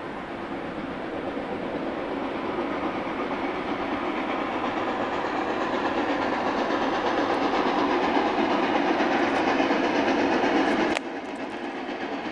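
Reading & Northern 425, a 4-6-2 steam locomotive, approaching with its passenger train, the sound building steadily louder. The level drops abruptly about eleven seconds in and then climbs again.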